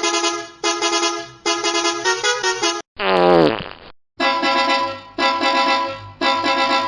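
Edited bus horn sound effect: a chord-like horn sounded in short, repeated blasts. About three seconds in, a fart sound effect cuts in for about a second, falling steadily in pitch, and then the horn blasts resume.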